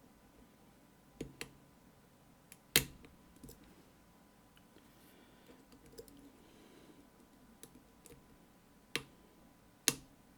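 Lock pick tapping and raking at the pins inside an ASSA Guideline lock held under tension: scattered small metallic clicks. The loudest click comes about three seconds in, and two more come near the end.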